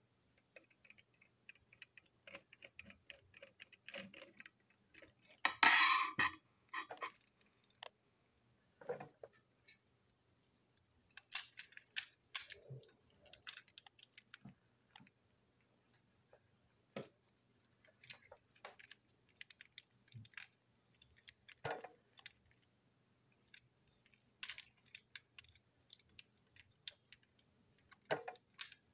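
Small scattered clicks and taps of plastic and metal parts of a toy train engine being handled and unscrewed with a screwdriver, with a louder brief clatter about six seconds in and a few sharper clicks later.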